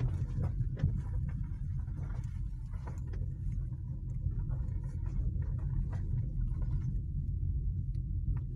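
Car interior noise while driving slowly over broken, potholed asphalt: a steady low rumble of tyres and engine, with scattered knocks and rattles as the suspension and body take the holes.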